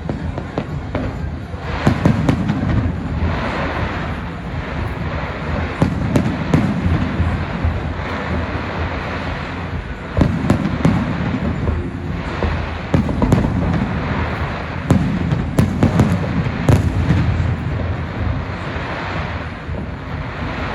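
Aerial fireworks display: a sharp shell burst every few seconds, each followed by rumbling and crackling.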